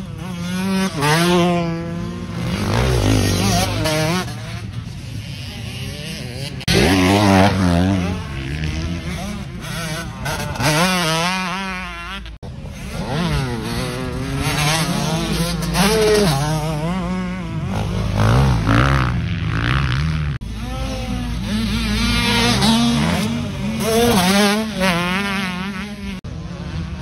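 Motocross bikes revving hard on the track, their engine notes climbing and dropping over and over with throttle and gear changes as bikes pass one after another.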